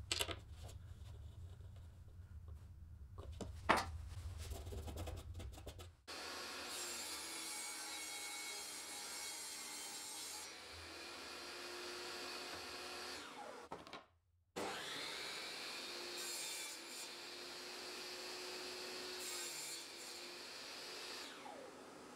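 Benchtop table saw running and cutting MDF boards, in two long stretches from about six seconds in, with a short break near the middle. Before the saw starts, a few sharp knocks from bench work.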